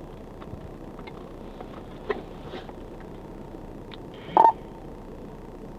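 A short electronic beep about four seconds in, over a steady low background hum with a few faint clicks.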